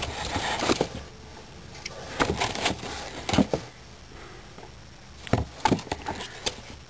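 Handling noise from an HP t5325 thin client with a metal case being turned over in the hands above its foam packing: scattered light clicks and knocks with brief rustling.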